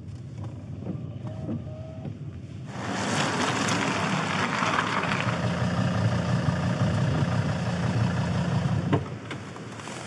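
Car cabin noise while driving on a wet road. About three seconds in it gives way to wind and rain buffeting the microphone outside, over the low rumble of the Volvo XC90's engine idling, which drops away about a second before the end.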